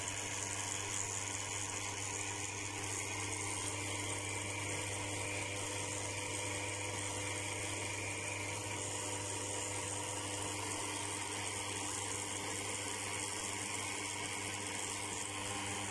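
WEGA Vela commercial espresso machine's pump motor running steadily while it pushes water through the coffee for a shot: an even electric hum with a high hiss. The owner reads the pump pressure as only about 5 bar, too little for proper espresso extraction.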